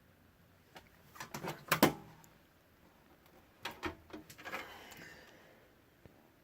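Knocks, clicks and rattles as a metal box fan is handled and turned over: two short clusters of clunks, the loudest about two seconds in, then a second group of clicks with a brief scrape.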